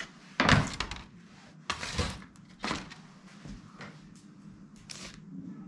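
A magazine and loose paper sheets being handled, making several short rustles and scrapes spread over a few seconds.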